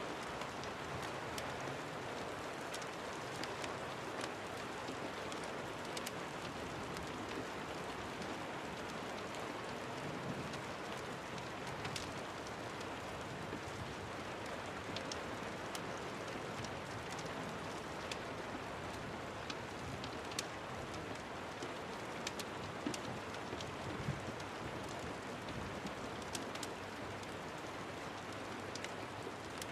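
Steady rain, an even hiss, mixed with a fireplace whose crackling shows as scattered sharp pops throughout.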